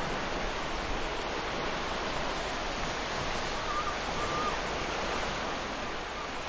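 Ocean surf washing steadily onto a sandy beach, a continuous rush of breaking waves.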